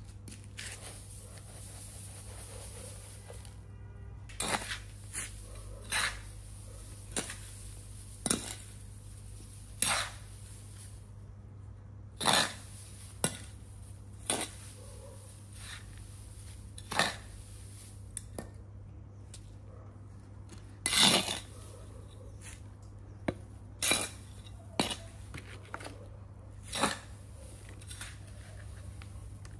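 Sharp clicks and knocks of hard objects being handled, irregular and a second or two apart, the loudest about two-thirds of the way through, over a steady low hum.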